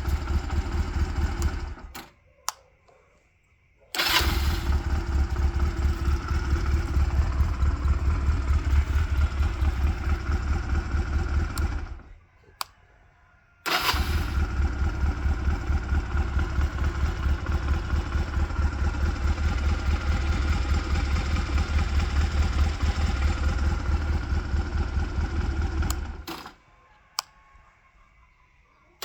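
Honda Rebel CA125's air-cooled parallel-twin four-stroke engine idling on its original stock exhaust. It dies away to silence three times, with a single click in each gap, and comes straight back to idle after the first two.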